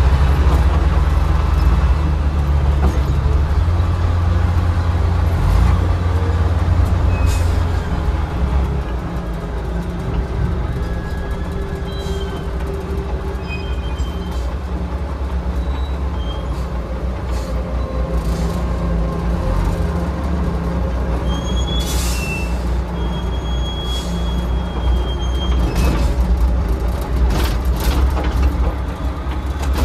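Old Caterpillar wheel loader's diesel engine running steadily, heard from inside the open cab as the machine drives. A few short high squeaks come partway through, and sharp metal clanks come near the end.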